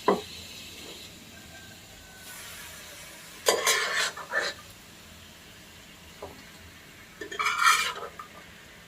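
Kitchen utensil scraping and clattering against cooking pots as cooked mutton pieces are moved into a karai. There is a short knock at the start, then bursts of scraping about three and a half seconds in and again near the end.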